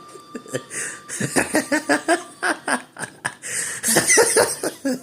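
Cartoon character voice laughing in quick, broken bursts, with a loud breathy rush about four seconds in.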